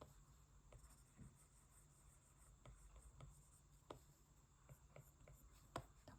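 Near silence with faint, irregular light taps and strokes of a stylus on an iPad's glass screen during digital painting.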